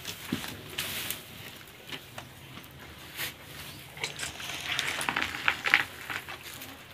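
Fresh green fodder grass and dry straw rustling and crackling as cows pull at it, with scattered sharp crunches and clicks, busiest about four to six seconds in.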